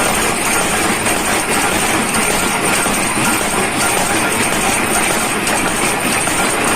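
Workshop machinery running steadily, an even mechanical noise with a thin high whine above it and no separate hammer blows.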